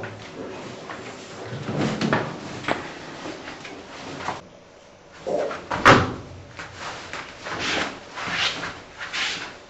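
Handling knocks, thuds and rustling as someone moves about. A few scattered bumps come first, then the loudest sharp knock a little before the middle, followed by three softer rustling swells.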